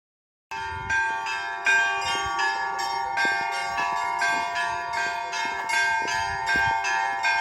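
Orthodox church bells ringing, starting about half a second in: bells struck in a quick, even pattern of about three strokes a second over a steady, lasting ringing tone.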